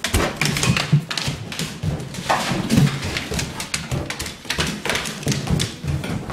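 Labrador puppy play-attacking at close range: short low growls mixed with scuffling and a quick, irregular run of knocks and rustles.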